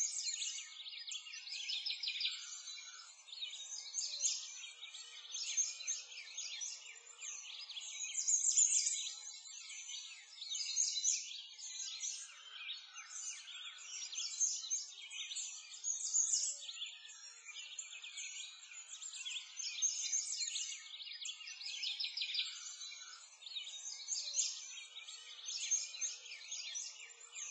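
A chorus of many small birds chirping and singing without a break, high-pitched, swelling and fading every couple of seconds.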